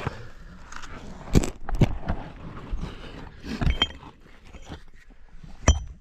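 Loose rocks being worked free and shifted: irregular scraping and rustling broken by several sharp knocks and clinks of stone on stone, a few of them ringing briefly.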